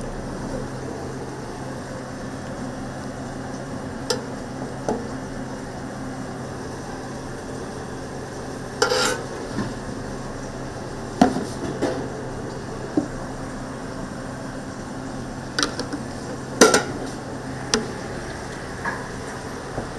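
Cooking at a griddle: a steady sizzle and hum, broken by about a dozen sharp clicks and knocks of metal utensils against the griddle and dishes.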